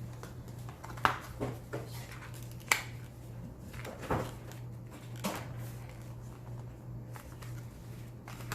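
Cardboard box and paper packaging being handled: scattered short rustles and a few sharp clicks and taps, over a steady low hum.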